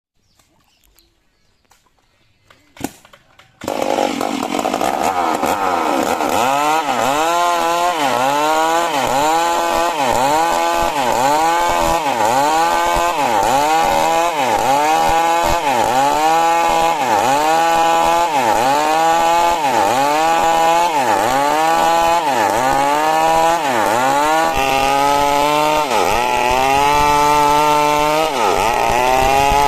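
Chainsaw starts up about three and a half seconds in and cuts coconut wood, its engine pitch dipping and recovering about once a second as it takes the load. Near the end it runs in longer, steadier stretches.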